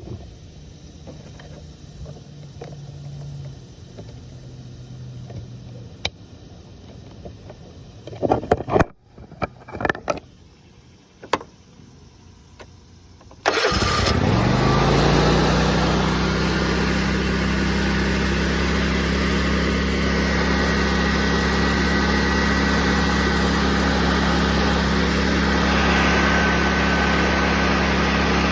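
A Toro V-twin riding-mower engine starts abruptly about halfway through, its pitch rising as it catches, then runs steadily. Before that there are only a few short knocks and clicks. The engine starting is the sign that the fault lies in the PTO switch, not the PTO clutch.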